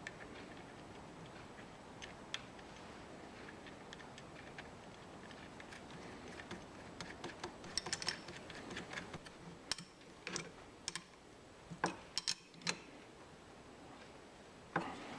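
Scattered light clicks and taps of small metal parts and hand tools being handled on a workbench, over a faint steady hiss. The clicks come in an uneven cluster from about halfway through.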